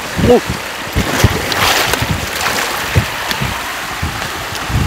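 Wind buffeting the microphone in low thumps over the steady rush of river water, with a stronger gust about a second and a half in.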